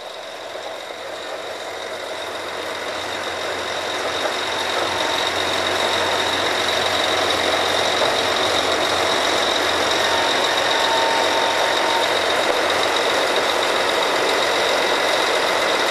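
Drilling rig machinery running: a steady mechanical din that grows louder over the first several seconds and then holds, with a thin, steady high whine through it.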